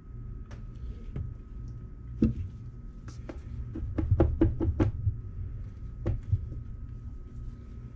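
Silicone soap mold full of soap batter tapped down on a wooden tray to knock out air bubbles: one knock about two seconds in, then a quick run of about seven knocks, and one more about six seconds in.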